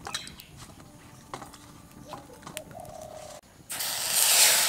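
Water poured into a cooking pot: a sudden rushing splash about a second long near the end, after a few light clicks and knocks of utensils.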